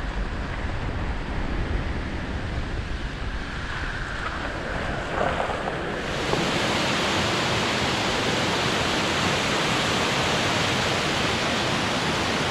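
Wind buffeting the microphone over a vehicle rolling along a dirt trail. About six seconds in, this gives way abruptly to the steady rush of a mountain stream cascading over rocks.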